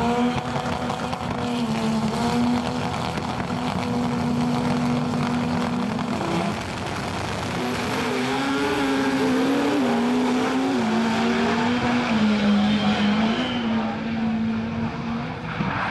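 Drag racing car engines running loud and steady, their pitch held level at first, then wavering up and down.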